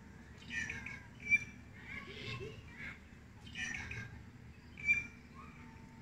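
Birds calling in about five short bursts of chirps and squawks, with two sharper, louder notes: one just over a second in and one near the five-second mark.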